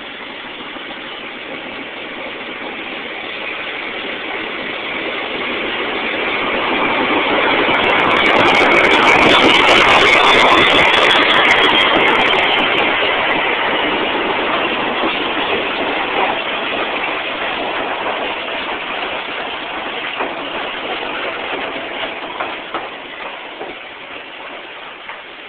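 Diesel-hauled passenger train passing very close: the locomotive's engine and rumble build to a loud peak about ten seconds in, then the carriages roll by with the sound slowly fading.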